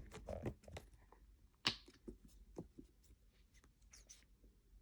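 Faint, scattered sticky clicks and squishes of hands kneading Model Magic clay mixed with lotion, with one sharper crackle about one and a half seconds in.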